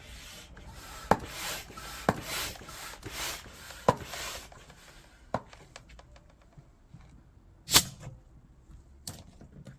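Air pump inflating a flood barrier chamber through a hose, a rush of air in strokes about once a second for the first four or five seconds. Several sharp knocks or clicks come through, with a loud one near the end.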